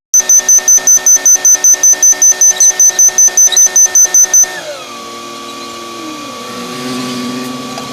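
Rapid electronic warning beeper on road-paving machinery, about five to six loud high beeps a second, stopping about four and a half seconds in. A machine's engine runs on underneath, its pitch dropping after the beeping stops.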